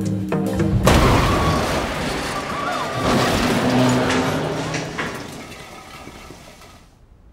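A sudden loud crash about a second in cuts off the jazz music. It is followed by a noisy rumble that slowly dies away over the next several seconds.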